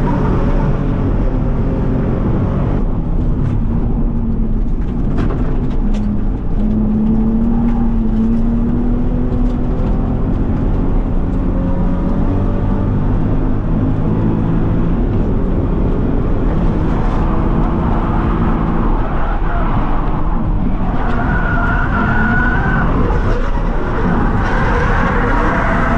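Drift car's engine running hard through a drift run, its pitch rising and falling as the revs change, over steady tyre and road noise, with a few sharp clicks a few seconds in.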